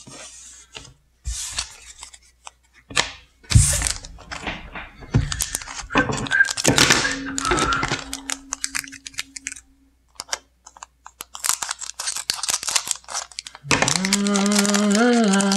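Foil trading-card booster packs being handled and opened: crinkling foil, tearing and scattered clicks and knocks, with one sharper knock a few seconds in and dense crinkling shortly before the end. A person's voice hums a few notes near the end.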